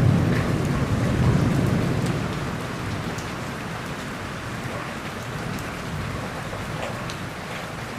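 Steady rain falling, with scattered drops ticking, under a low rumble of thunder that dies away after about two seconds.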